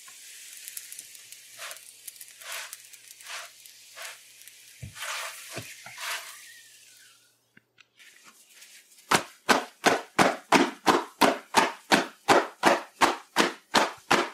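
Oil roti sizzling faintly in a frying pan while a spatula scrapes and presses it. Then, about nine seconds in, the cooked roti is clapped between the hands in a steady run of sharp slaps, about three a second, which breaks it up into flaky layers.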